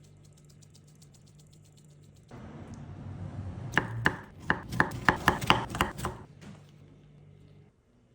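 Knife chopping through food onto a cutting board: a quick run of about ten sharp knocks, roughly four a second, in the middle of the stretch, with some rustling around them.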